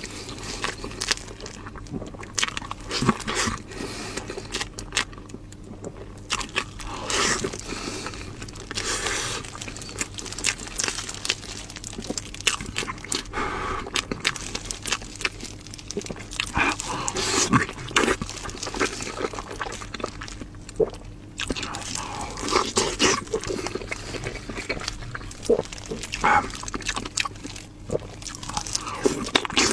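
Close-miked eating: a person biting into and chewing spicy lamb chops, with irregular crunchy bites and chewing sounds.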